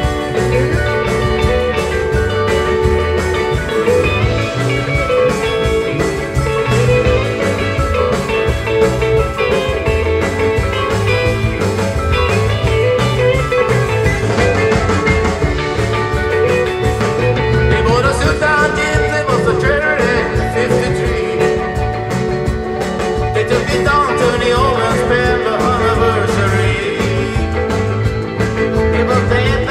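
Live rautalanka band playing: electric guitars over bass and a steady beat.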